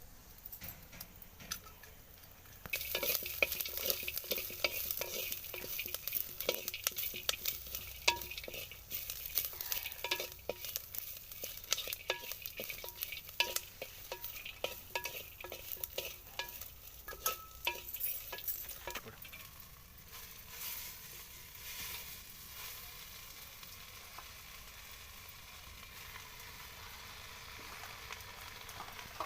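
Vegetables frying in hot oil in a pan, sizzling, with a spatula scraping and clicking against the pan as they are stirred. The sizzle jumps louder about three seconds in; after about nineteen seconds the stirring stops and a quieter, steady sizzle remains.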